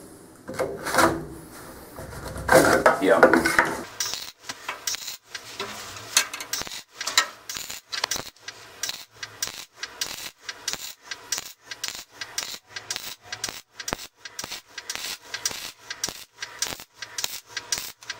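Wood scraping and rubbing against steel as a wooden strap is slid into a steel bracket. About four seconds in, a MIG welder's arc starts crackling on 1/8-inch steel in an even, rapid stutter of roughly three pulses a second.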